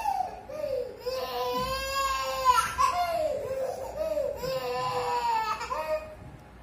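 A toddler girl crying in a tantrum for her blanket: long, drawn-out wailing cries that rise and fall in pitch, broken by short catches of breath, trailing off near the end.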